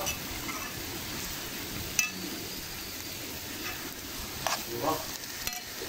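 Grated courgette and carrot sizzling gently in oil in a non-stick frying pan as a spatula stirs them, with a sharp click about two seconds in.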